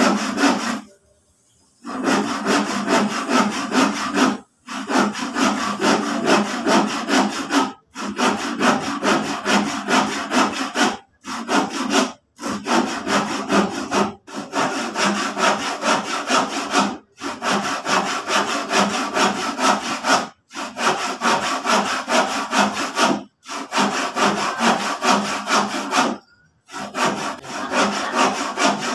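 Hand saw cutting through a piece of used wooden lumber in quick back-and-forth strokes, stopping briefly every few seconds before sawing on.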